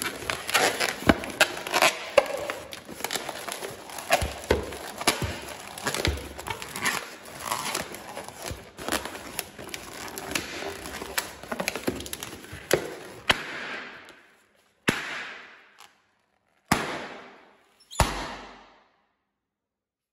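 Latex modelling balloon squeaking and crackling as it is squeezed and twisted in the hands, then three sharp pops, each followed by about a second of fading hiss.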